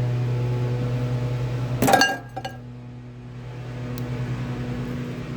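Microwave oven running with a steady low electrical hum. A sharp glassy clink with a short ring comes about two seconds in, after which the hum drops in level and slowly builds again.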